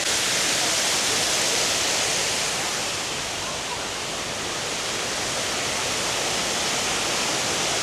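Waterfalls pouring into a grotto pool: a steady rush of falling water.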